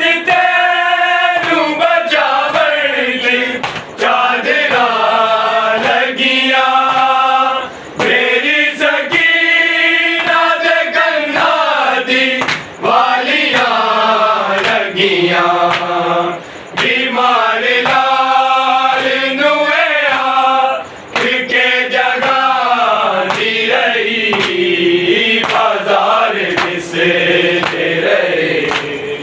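A group of men chanting a noha, a Shia lament, together in long sung phrases of a few seconds each, with short breaks between them. Hands beat on chests (matam) in time with the chant.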